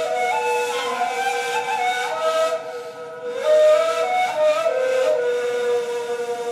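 Two neys, end-blown cane flutes, playing an improvised modal duet: one holds a steady low note while the other moves up and down above it in stepped phrases, the tone full of breathy air. The playing dips briefly about halfway through, then swells again.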